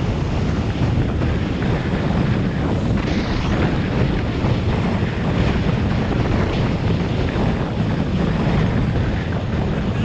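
Wind buffeting the microphone of a helmet-mounted GoPro Hero 5, a steady rushing noise heaviest in the low range.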